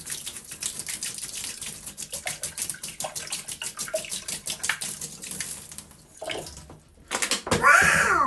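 Water running into a bathtub, an irregular patter of splashing clicks over a steady hiss. About seven seconds in, a loud squawking Donald Duck-style voice cuts in.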